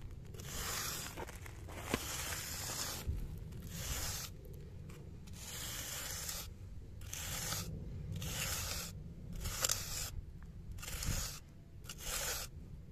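A steel jointing iron scraping along the edge of fresh concrete in repeated strokes, roughly one a second, shaping a quarter-round edge against the formwork. The concrete has begun to set, which is the right moment for the edge to form cleanly.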